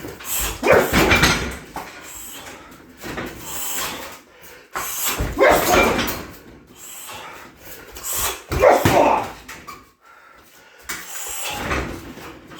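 Roundhouse kicks landing on a 60 kg heavy bag, three heavy strikes about four seconds apart with lighter ones between. Each starts with a sudden thud and trails off over about a second.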